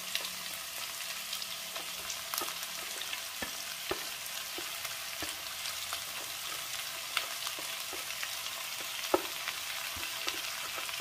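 Sliced onions and garlic sizzling in hot coconut oil in a pan: a steady frying hiss with scattered crackles and a few sharper clicks.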